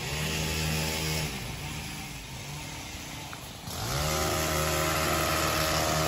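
Petrol hedge trimmer's small two-stroke engine revving in bursts. It runs at speed, drops back after about a second, then revs up again a little past the middle and holds there.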